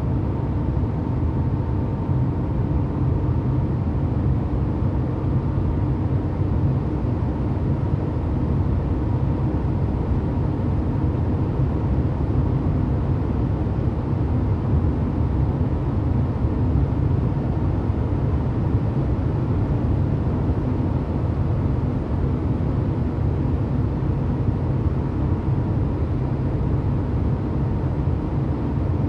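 1990 Porsche 911's air-cooled flat-six engine running steadily, its low drone holding an even pitch and level throughout.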